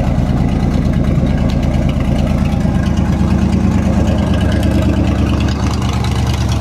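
1958 Chevrolet Apache pickup engine idling steadily on freshly cleaned and regapped spark plugs after being flooded, running smoothly. The exhaust is loud because the cherry bomb muffler is missing from the system.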